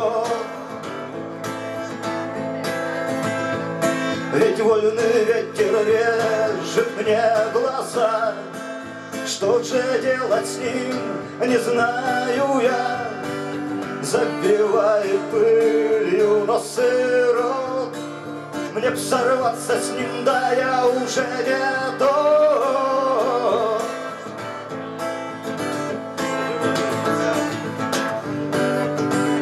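Live male singing with a strummed acoustic guitar. The voice stops about three-quarters of the way through, and the guitar strums on alone.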